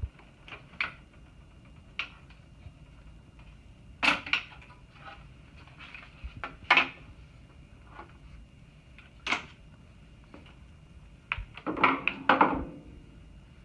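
Scattered clicks and knocks of a hiking wheelchair's parts being handled as it is taken apart, with a dense cluster of louder knocks near the end.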